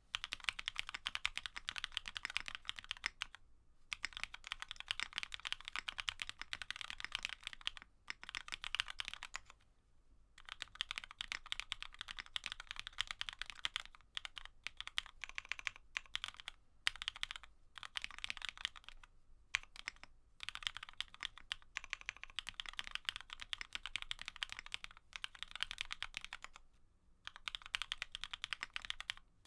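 Fast continuous typing on a GEONWORKS F1-8K custom mechanical keyboard with an FR4 poron gasket-mounted plate, CherryCream switches (Cherry black housings with Kailh Cream stems) and CMK keycaps. Rapid keystroke clicks in runs of several seconds, broken by brief pauses.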